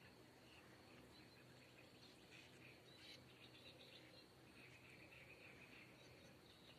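Faint twittering of swallows in flight: short, scattered chirps, with a livelier patch a couple of seconds in and another in the second half.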